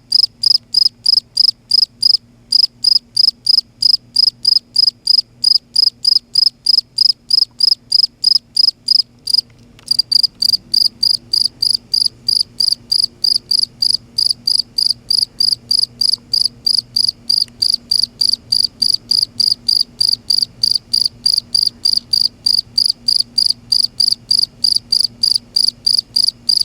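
A cricket chirping loudly in a fast, even, high-pitched pulse of about three chirps a second, with a short pause about ten seconds in.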